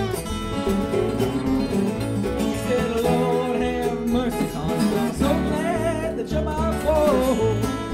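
Bluegrass band playing an instrumental passage on acoustic guitars, mandolin and upright bass, with a steady bass pulse; in the second half a lead line wavers and slides between notes.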